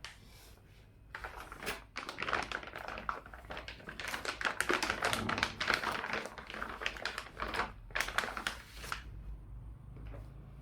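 Packaging being handled during the unboxing of a laptop: irregular crinkling and rustling mixed with small taps and clicks. It is busiest through the middle and eases off near the end.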